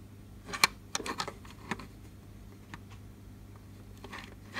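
A few irregular light clicks and taps from handling, the sharpest about half a second in and a small cluster just after, over a faint steady low hum.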